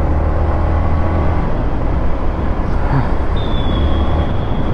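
Yamaha MT-15's single-cylinder engine running steadily under way, with wind and road noise, its exhaust back on the stock silencer. A thin high whistle comes in about three seconds in.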